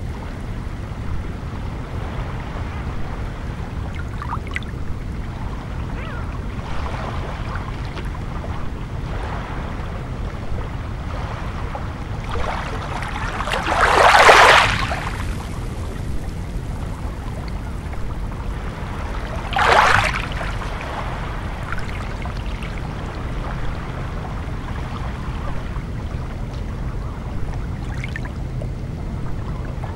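Small sea waves washing in over a pebble shore, over a steady low rumble. The largest wash comes about midway and rushes over the stones for a couple of seconds, and a shorter one follows about six seconds later.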